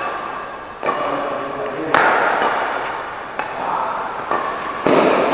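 Badminton rackets hitting a shuttlecock in a rally: several sharp cracks about a second apart, each ringing on in the reverberation of a large hall.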